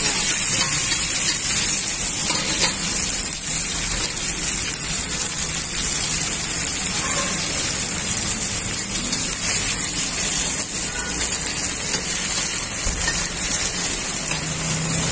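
Oil sizzling steadily in a large iron wok as a masala mixture fries in it.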